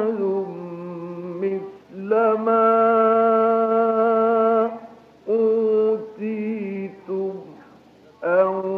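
A male Quran reciter chanting in the Egyptian mujawwad style, in maqam bayati, in long ornamented notes held over several breaths. One held note runs for a few seconds in the middle, and short wavering phrases follow it. The old recording sounds dull, with no high treble.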